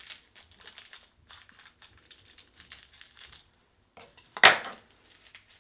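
Small plastic candy wrapper crinkling and crackling as it is handled and worked open, with one much louder sharp crackle about four and a half seconds in.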